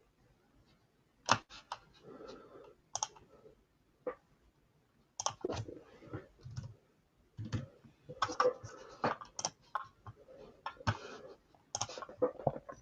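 Computer keyboard typing and mouse clicking: irregular clusters of short clicks and taps.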